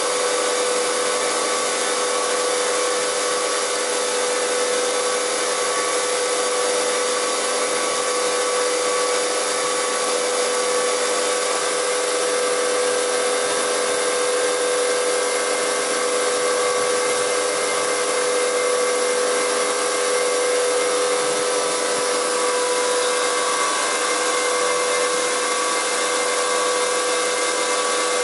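Weinig four-sided planer/moulder running steadily, its cutter spindles and feed drive turning with no workpiece: an even mechanical hiss with a steady whine that does not change.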